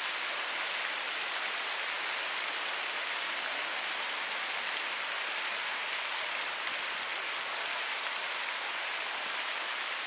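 Steady, even hiss of water with no single events standing out.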